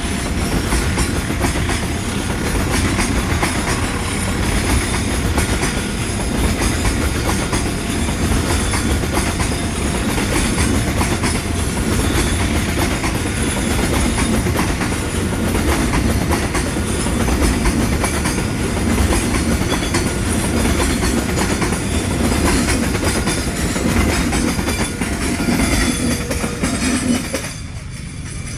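Freight train's tarpaulin-covered wagons rolling past close by on the rails: a steady, loud rolling noise of wheels on track. About a second before the end it drops abruptly to a quieter, more distant passing train.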